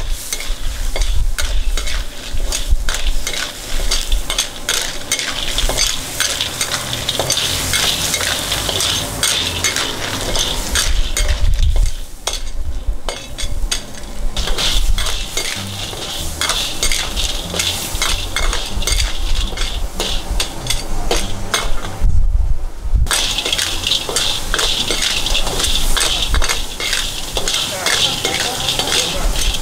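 Conch being stir-fried in a wok with lemongrass and chilli: a metal ladle scrapes the wok and clatters through the shells over a steady sizzle of hot oil. The sizzle and clatter drop off briefly twice.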